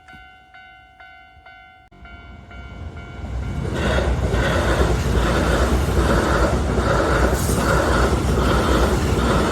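Railway crossing bell ringing its steady repeated ding, about three strokes a second. From about two seconds in, a train approaches and passes close by, loud from about four seconds in, with the rhythmic clatter of its wheels over the rail joints.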